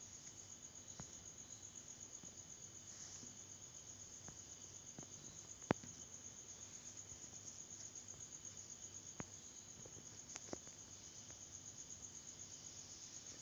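Faint crickets chirping steadily, a high, evenly pulsing trill, with a few light clicks, the sharpest about halfway through.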